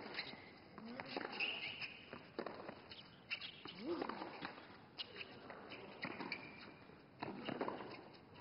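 Tennis rally on a hard court: racket strikes on the ball about once a second, with shoe squeaks and short grunts from the players.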